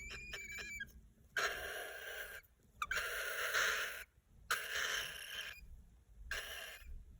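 Cockatiel making its raspy, wheezing baby calls: a quick run of short chirps, then four long hissing rasps.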